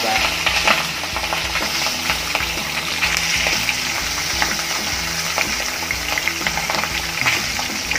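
Raw milkfish pieces frying in hot oil in a pan: a steady sizzle with constant fine crackling.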